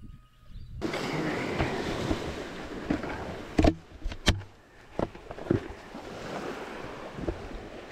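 Water splashing and washing around, starting abruptly just under a second in, with a few sharp knocks around the middle.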